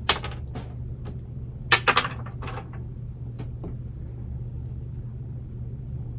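Chunks of old bark potting medium dropping and clicking onto a tray as an orchid's root mass is shaken and picked clean: a few sharp clicks, the loudest a quick cluster of three about two seconds in. A steady low hum runs underneath.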